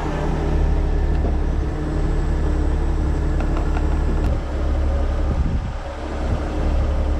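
Heavy rotator tow truck's diesel engine running steadily with a low rumble. It dips briefly about six seconds in, then picks back up.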